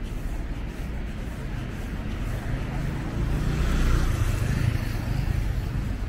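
Street traffic: a car passes by on the road alongside, its tyre and engine noise swelling about four seconds in over a steady low rumble.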